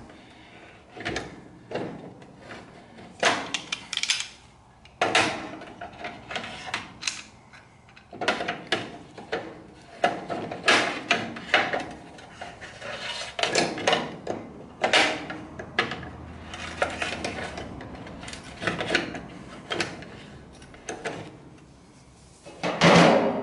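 Pliers clicking and scraping on the plastic nut that holds a gas grill's push-button igniter and against the stainless steel control panel as the nut is worked loose. The clicks and scrapes come irregularly, with a louder clack just before the end.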